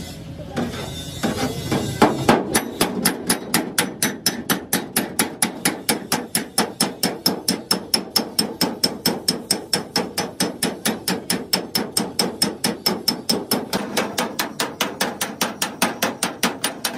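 Body hammer tapping on a car bonnet's sheet steel in a fast, even rhythm of about four strikes a second, starting about two seconds in. The strokes work the torch-heated spots of a dent, heat-shrinking the stretched panel.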